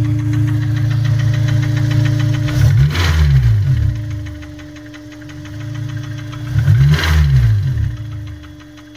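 Honda S2000 inline-four engine idling, revved briefly twice with the pitch rising and falling each time, about three seconds in and again about seven seconds in. It has a knocking noise that the owner suspects is either rod knock or a failing timing chain tensioner.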